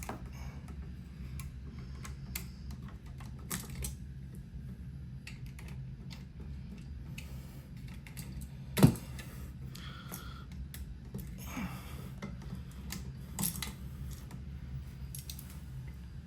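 Scattered small clicks and rattles of hands working an old wall switch and its wires out of the electrical box, with one sharp knock about nine seconds in, over a steady low hum.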